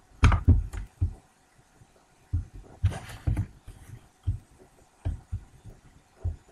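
About a dozen soft, low thumps at irregular intervals, a few with a brief rustle or click on top.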